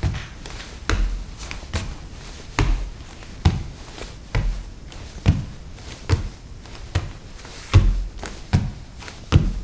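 Bare feet walking at a steady pace across a wooden floor, a little under one step a second, each footfall a soft low thud with a light tap.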